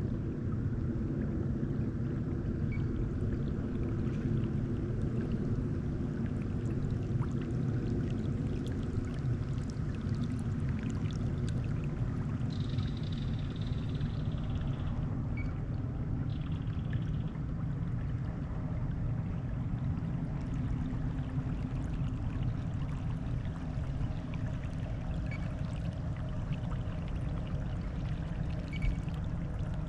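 Water trickling and splashing around a moving kayak, with small drips and knocks over a steady low hum.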